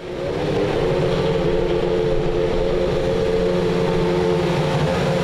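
Racing car engine running at high revs, held at a steady pitch.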